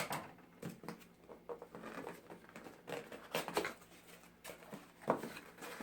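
A box being opened and its packaging handled by hand: an irregular run of rustling, scraping and tapping, beginning with a sharp knock.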